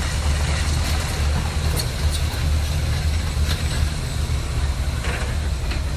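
Excavator's diesel engine running steadily under load while it works a hydraulic ripper attachment, with a few brief sharp scrapes or knocks about two and three and a half seconds in.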